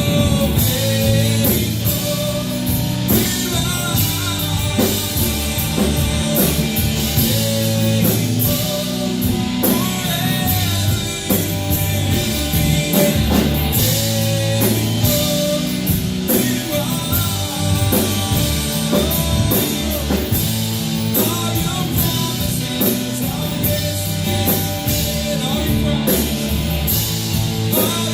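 Live worship band playing a rock-style song with drum kit, guitar and singing.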